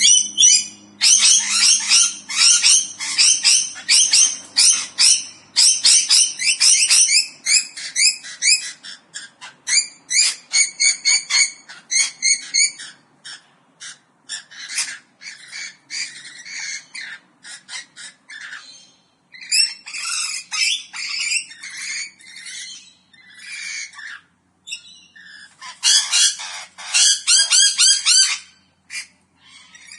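A flock of parrots chattering, with many rapid high chirps and squawks overlapping. The calls thin out around the middle and build up again near the end.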